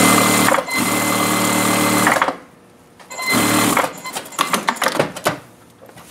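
Industrial sewing machine stitching a seam: a run of about two seconds with a brief break, a pause, a shorter run, then a string of quick short bursts as the needle is worked slowly around a corner in the seam.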